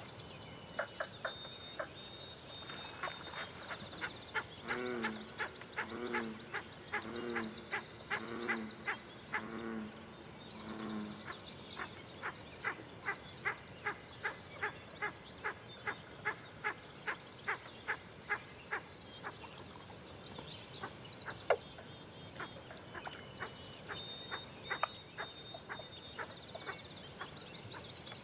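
Wild birds calling in a dawn chorus, with high chattering song and a thin held whistle. Long runs of sharp ticking calls come about two a second, and from about five seconds in a low, hoarse call repeats roughly once a second for several seconds.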